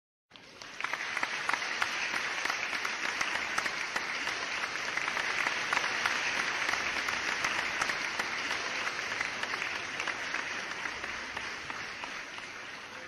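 Audience applauding: many hands clapping, starting suddenly and slowly fading out toward the end.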